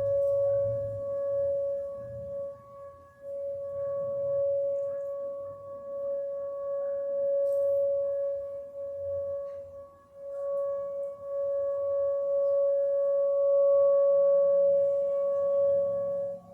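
Outdoor tornado warning sirens sounding a steady tone at one pitch, swelling and fading in loudness every few seconds.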